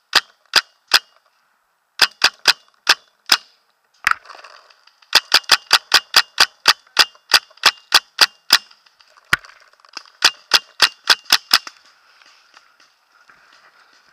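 Paintball marker firing strings of sharp pops, up to about five shots a second, in several bursts with short pauses between them; the shooting stops a couple of seconds before the end.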